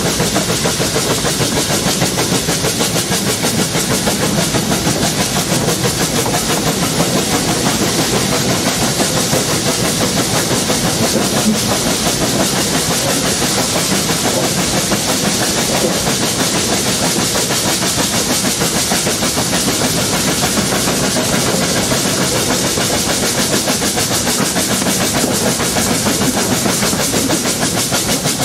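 Narrow-gauge 0-6-0 tank locomotive No. 823 steaming along at a steady pace, heard close up from the cab: a fast, even run of exhaust beats mixed with wheel clatter on the rails.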